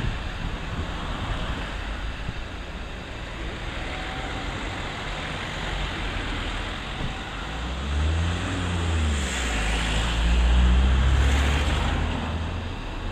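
CASA CN235 twin-turboprop aircraft flying past overhead: a steady rush of engine noise that swells over the second half. A low propeller hum wavers in pitch as it passes and is loudest shortly before the end.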